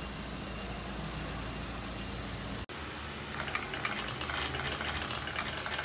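Steady low rumble of street traffic. After a sudden cut, a marker pen scratches across paper in quick short strokes as letters are written close to the microphone.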